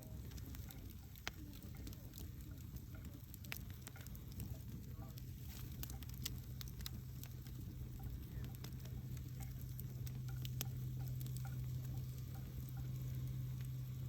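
Wood campfire burning, crackling steadily with scattered sharp pops over a low rumble. A low steady hum runs underneath and grows louder after a few seconds.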